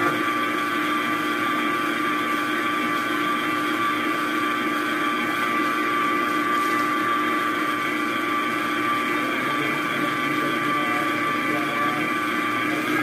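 Stand mixer motor running at a steady speed, its wire whisk beating whipped-cream frosting in a stainless steel bowl. A steady, even whine that holds one pitch.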